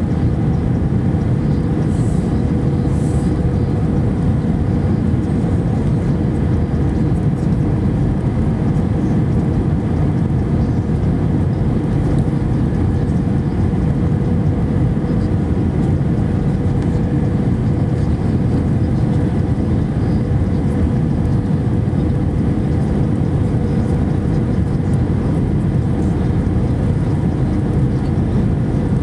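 Steady cabin noise inside an Airbus A319 descending on approach: a loud, even rumble of the CFM56 engines and the air rushing past the fuselage, with a steady hum running through it.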